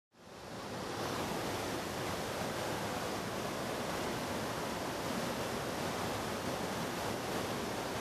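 Whitewater of a river waterfall rushing steadily, fading in over the first second.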